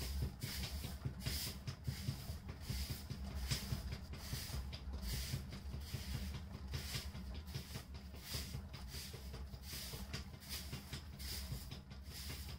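Wet hands rubbing and shaping a clay pot on a turning potter's wheel, a soft swish about twice a second over a steady low rumble from the wheel.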